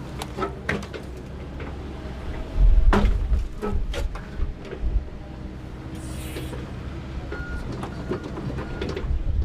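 Komatsu tracked excavator working in mud and wreckage: the engine running under load with repeated metallic clanks and knocks as the arm and bucket move. The loudest moment is a low thump with clanking about three seconds in.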